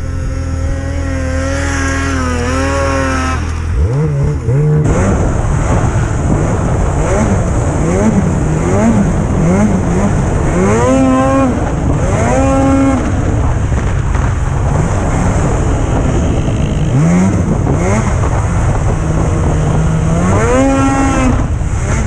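Snowmobile engine running under throttle along a trail, its pitch climbing and dropping again and again as the rider accelerates and eases off, over steady track and wind rush. There is a sharp change in the sound about four seconds in.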